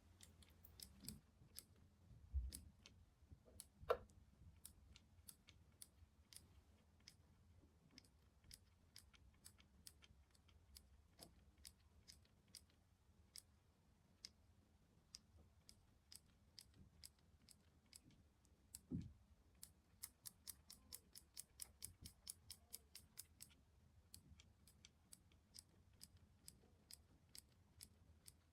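Faint, sharp clicks and light taps at an irregular pace, a few louder knocks near the start, with a quicker run of clicks about twenty seconds in.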